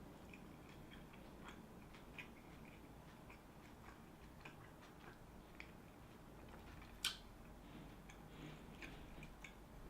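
Quiet chewing of a sub sandwich, with faint small mouth clicks and one sharper click about seven seconds in.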